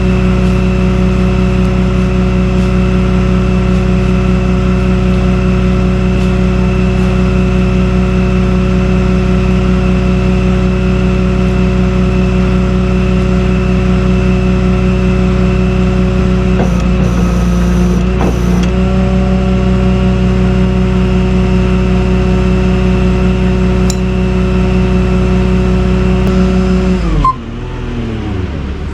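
A vehicle engine running at a steady, fairly high speed. Its pitch sags briefly twice past the middle, then winds down with a falling pitch to a lower, quieter running near the end.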